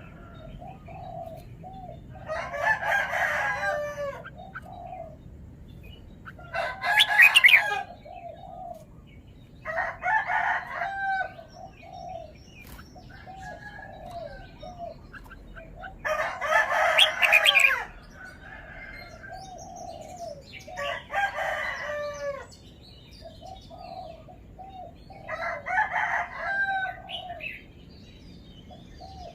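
Red-whiskered bulbul singing: six loud, rapid song phrases a few seconds apart, with softer short calls in between.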